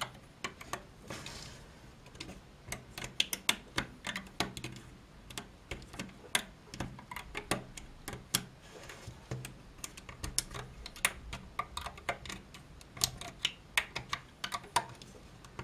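Quick irregular clicks and taps of a plastic crochet hook against the plastic pegs of a Rainbow Loom as rubber bands are pulled up and hooked over them, several clicks a second.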